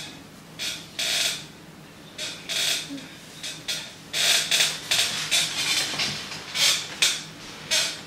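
A string of short, irregular creaks and rustles from a person moving about on a chair, about a dozen in all, coming thicker and louder from about four seconds in.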